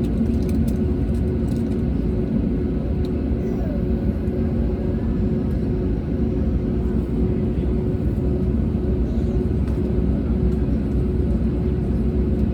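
Steady low rumble and hum inside the cabin of an Airbus A320neo on the ground, its Pratt & Whitney PW1100G geared turbofan engines running at idle.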